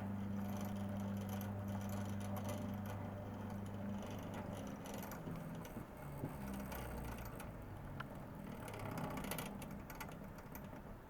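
Meccano model cable car's small electric motor and gear train running, with a steady hum and light gear clatter. About four to five seconds in, the steady hum drops away and the sound turns to an uneven lower whirring with scattered clicks.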